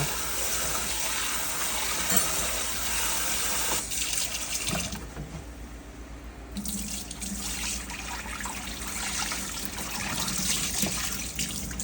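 Kitchen tap running into a sink while raw chicken wings are washed under the water. The flow thins out for a moment about halfway through, then runs again.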